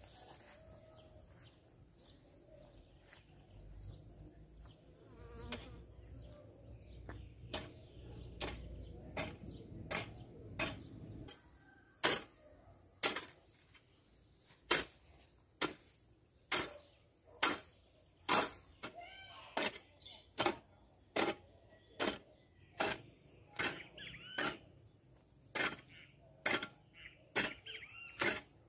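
Garden hoe chopping into dry soil in a steady rhythm of sharp strikes, about three every two seconds, starting about a third of the way in. Before that there is a low rumble with a few softer knocks.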